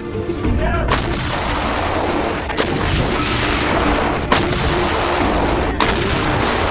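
Self-propelled howitzers firing: four sharp shots about every second and a half over a continuous low rumble.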